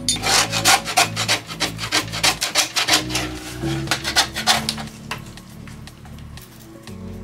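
Old vinyl covering and foam padding being ripped and scraped off a plywood helm console: a fast run of rough rasping strokes, about five a second, that dies away after about five seconds.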